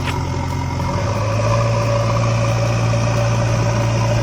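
Steady, low engine-like hum of a miniature model tractor running, with no change in pitch.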